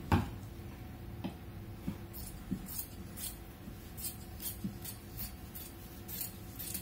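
Scissors cutting through folded lining fabric: a run of quiet, crisp snips, about three a second, starting about two seconds in.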